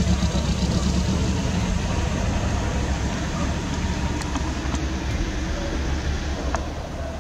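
Steady low rumble of outdoor street noise, like traffic or a vehicle engine running, gradually softening toward the end.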